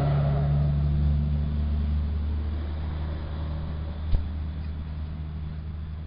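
A steady low mechanical hum that slowly fades, with a single sharp click about four seconds in.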